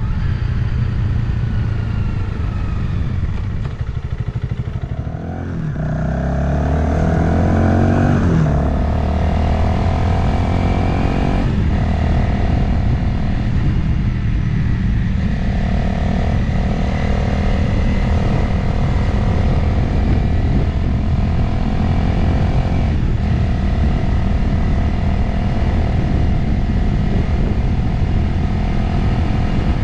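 Motorcycle engine heard from the rider's position with wind noise: it slows down, then accelerates with rising revs a few seconds in, and after that cruises at a steady pitch with a few brief dips, like shifts or throttle changes.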